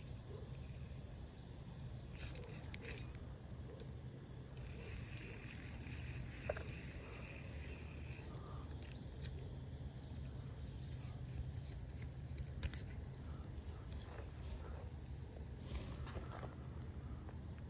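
Insects chirring in one steady, unbroken high-pitched drone, with a low background rumble and a few faint clicks.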